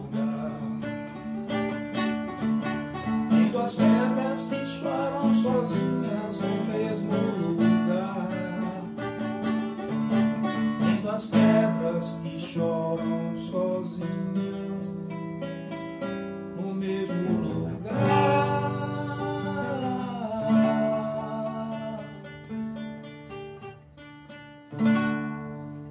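Nylon-string classical acoustic guitar strummed and picked through the song's closing instrumental passage. It grows softer toward the end, then one final strong strum.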